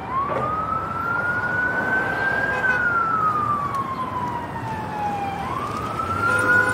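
Emergency-vehicle siren wailing. It rises in pitch for about two and a half seconds, falls more slowly for about three, and starts rising again near the end, over a steady rush of background noise.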